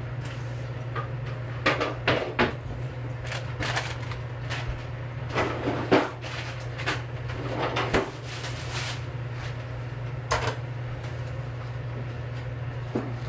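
Kitchen clatter of knocks and clunks, such as cupboard doors and dishes being handled, about a dozen, bunched in the first eight seconds and loudest about six seconds in. A steady low hum runs underneath.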